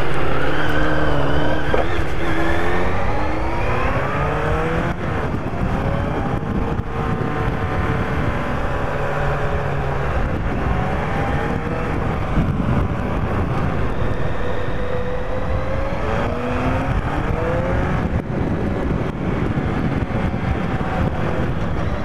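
Yamaha FZR1000 sport bike's inline-four engine running while riding, its pitch rising several times as the bike accelerates.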